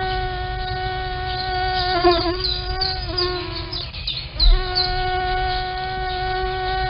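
Mosquito whine: a steady, high, pitched buzz that wavers about two seconds in, drops away briefly around four seconds, then comes back with a low thump.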